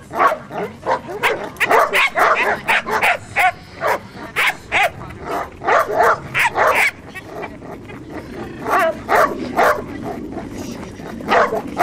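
Doberman barking repeatedly in quick, excited barks with some yips as a bite tug is waved at it during bite training, with a short break about seven seconds in.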